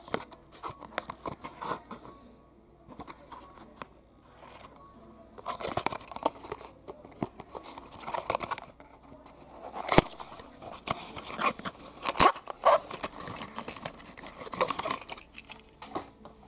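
A small cardboard toy-car box being handled and opened, with its packaging rustling and crinkling and scattered clicks and taps. The handling is sparse at first and busier from about five seconds in, and a sharp click about ten seconds in is the loudest sound.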